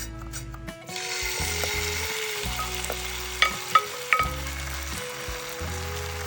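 Oat-and-egg omelette sizzling in a frying pan, the steady frying hiss setting in about a second in, with three sharp clicks near the middle. Soft background music plays underneath.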